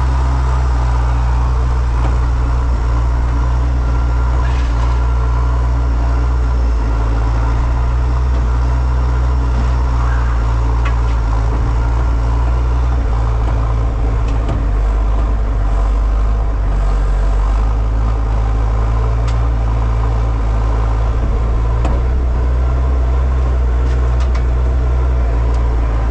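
An engine running steadily at idle, a constant low drone with a few faint clicks over it.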